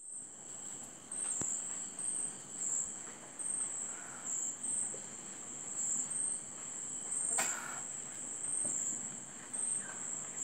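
Steady, high-pitched insect chirping in regular pulses, with a single sharp knock about seven seconds in.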